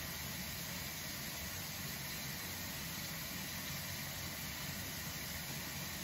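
Steady low motor hum with a hiss over it, unchanging throughout, with no distinct knocks or clicks.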